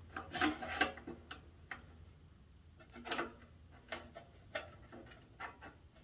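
Scattered light clicks and taps of heater parts being handled and fitted together by hand, about nine irregular knocks with short gaps between them.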